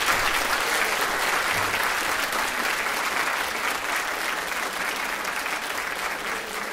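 Audience applauding, strongest at the start and slowly dying down.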